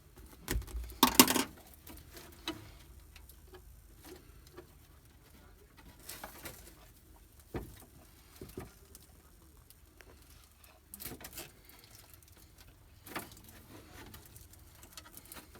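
Cutters snipping off extra cable and tie ends while the wiring is handled: a cluster of sharp snips and rustles about a second in, then scattered single clicks and handling noises.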